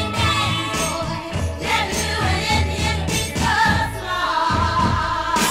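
A 1960s girl-group pop record: several voices singing sustained notes in harmony over a band with bass and drums.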